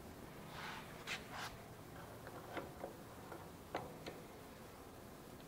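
Faint rubbing of a cloth rag wiping out the inside of an Enco 9x20 lathe's gear housing, with about half a dozen light clicks of metal parts being handled inside it.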